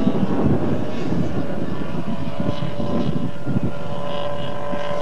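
A car engine running at steady high revs as the car is driven across rough scrubland, with a level whine and a low rumble of wind on the microphone.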